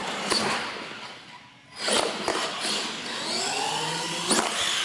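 Radio-controlled monster truck running on a concrete floor, a rush of motor, drivetrain and tyre noise. The noise fades and drops out briefly about a second and a half in, then comes back sharply. Near the end the motor's whine rises in pitch as the truck speeds up.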